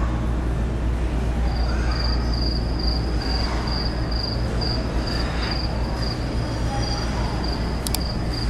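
Steady low hum of room ambience, with a thin, high beeping that pulses about three times a second from about a second and a half in. A sharp click comes near the end, a mouse-click sound effect on a subscribe-button animation.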